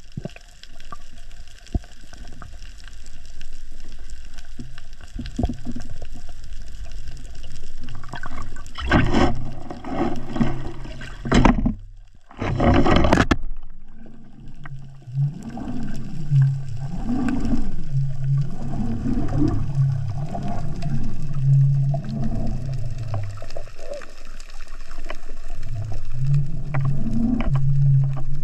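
Underwater sound of a freedive heard through the camera housing: a steady low rumble of water, a loud rush of noise for a few seconds near the middle, then swells of water noise rising and falling about once a second.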